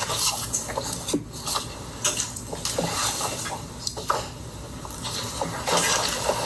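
Hearing-room background noise: shuffling and rustling, with a few light knocks.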